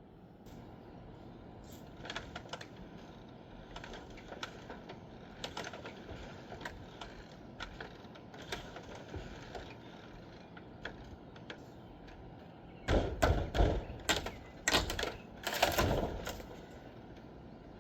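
Scattered light knocks and clicks from demolition work on a wobbly structure, then a run of louder thuds and bangs about thirteen seconds in, lasting three or four seconds.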